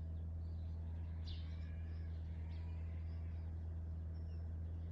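A few short, high bird chirps over a steady low hum of outdoor background sound.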